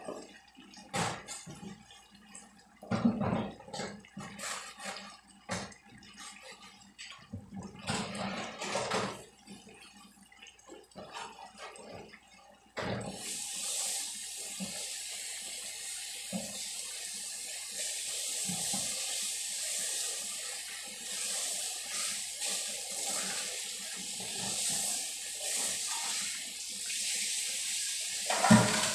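Dishes being washed by hand in a stainless steel kitchen sink: scattered clatters and splashes, then about 13 seconds in the faucet is turned on and water runs steadily into the sink, with a loud clatter near the end.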